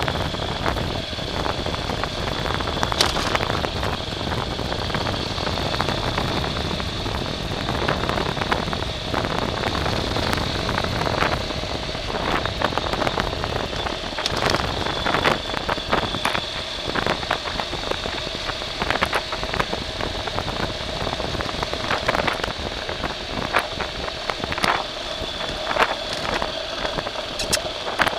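A vehicle driving over rough ground, with a steady high whine and many scattered knocks and crackles.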